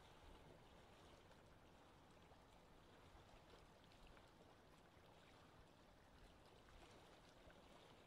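Faint, steady wash of small waves lapping at a lake shore, with light scattered splashy ticks, only just above near silence.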